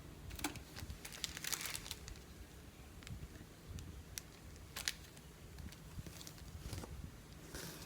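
Craft-kit packaging crinkling as it is handled, with scattered light clicks and taps. There is a longer rustle about a second and a half in and another near the end.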